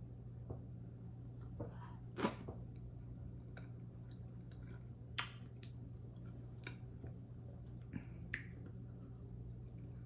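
Wet eating noises from fufu and okra soup: scattered soft mouth smacks and squishes, the loudest about two seconds in and again about five seconds in, over a steady low hum.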